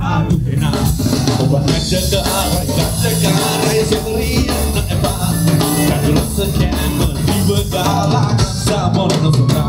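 Music with drums and a singing voice.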